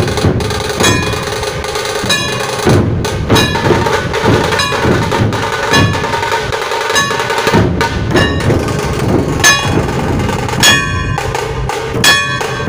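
A dhol-tasha troupe drumming: heavy dhol barrel drums beaten in a driving rhythm together with the sharp tasha drum, and repeated sharp strikes that ring briefly above the drums.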